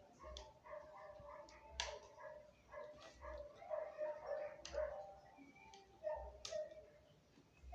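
A dog whimpering and yipping in short pitched calls, with a few sharp clicks between them.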